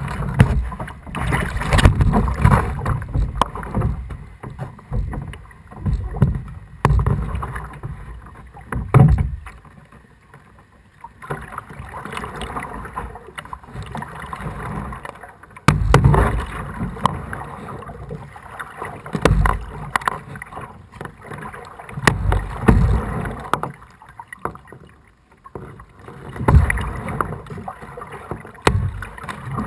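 Kayak paddling: the paddle dips and splashes every two to three seconds, with water running and dripping between strokes. There is a sharp knock about sixteen seconds in.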